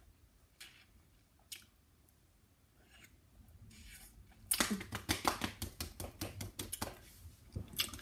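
Quiet at first with a few faint clicks; about halfway in, a fast run of sharp hissing breaths and short grunts starts, mixed with hands rubbing and clothing rustling. This is a person's reaction to an intensely sour hard candy in the mouth.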